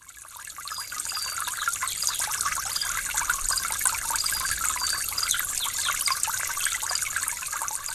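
Trickling, bubbling water, with many short high chirps over it, fading in during the first second.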